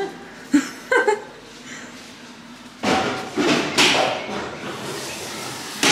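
Knocks and clatter of dishes and a plastic wash basin, a couple of knocks in the first second and a busier clatter from about three seconds in, echoing off the tiled walls.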